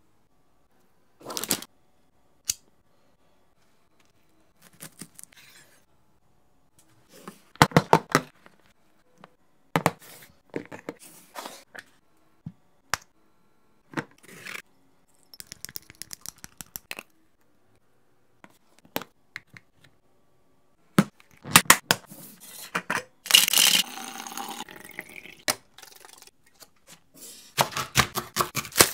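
Kitchen food-preparation handling sounds: scattered clicks and knocks of utensils and containers, a quick run of light taps about halfway through, and a longer crinkling, tearing rustle of packaging near the end.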